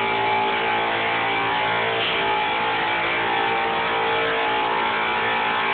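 An electric motor of construction equipment running steadily at constant speed, giving a loud, even hum of many tones.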